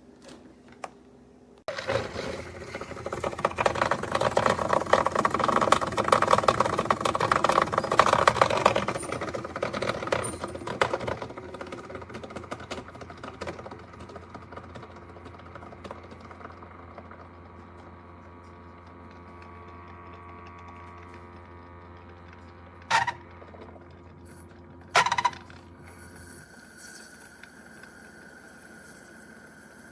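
Hamilton Beach FlexBrew Trio coffee maker brewing: water sputtering and gurgling loudly over a steady low pump hum for about ten seconds, then fading. The hum stops a few seconds before the end, just after two short sharp sounds.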